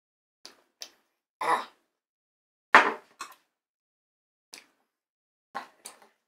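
A glass hot-sauce bottle set down on a wooden table and a knife and fork clinking and scraping against a ceramic plate while a chicken tender is cut: a scatter of short separate knocks and clinks, the loudest about three seconds in.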